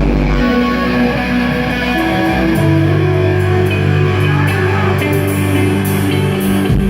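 Live rock band playing loudly, with heavily distorted electric guitars and a deep bass over drums; the bass shifts to a new note about two and a half seconds in.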